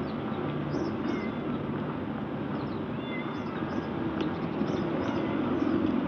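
Steady low outdoor background rumble, with faint high chirps here and there.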